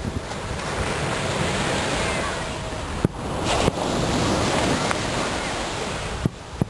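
Fireworks display: a few sharp bangs, about three seconds in and again near the end, over a steady rush of wind noise on the microphone.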